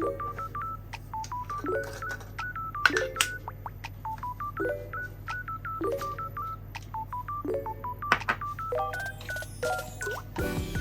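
Background music: a looping pattern of short, quick high beeping notes, with a lower chord-like figure recurring about every second and a half over a steady low hum.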